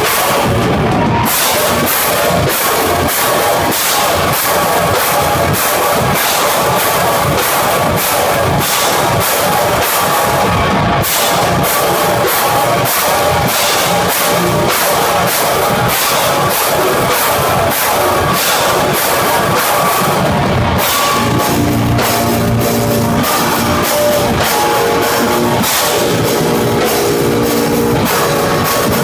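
Live metal band playing loud and fast: distorted guitars over rapid, dense drumming. About two-thirds of the way through, the drumming thins out under held, ringing guitar chords.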